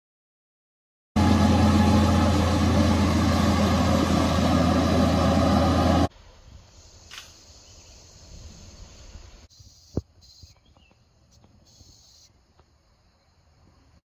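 A loud, steady, engine-like rumble with a deep hum starts about a second in, lasts about five seconds and cuts off abruptly. Then comes a much fainter outdoor background of insects buzzing in the grass, with one sharp click.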